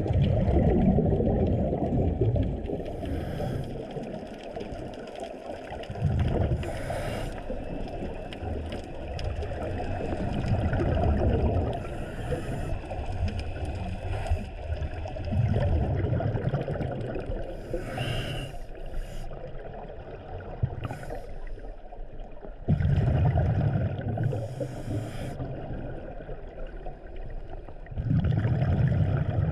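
Scuba regulator breathing heard underwater: exhaled bubbles rush and rumble past the camera every few seconds, with shorter high hisses in between, over a steady underwater hiss.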